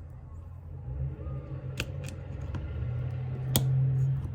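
Two sharp clicks about two seconds apart, with fainter handling ticks, as a part of an automatic locking hub is pushed down and around into place by hand. A steady low hum runs underneath.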